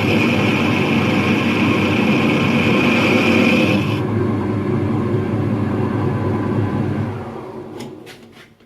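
A workshop power tool or machine running steadily with a high whine. The whine cuts off about four seconds in, and the lower running sound winds down to a stop near the end.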